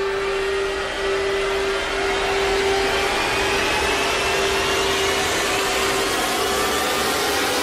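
Trailer sound-design riser: a rushing swell of noise with a held low tone beneath it and a faint whistle slowly climbing in pitch, growing brighter over several seconds and then cutting off suddenly.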